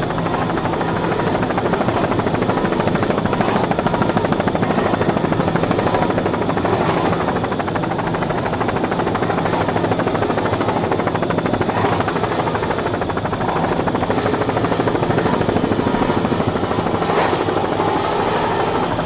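Steady, loud drone of a helicopter's engine and rotor.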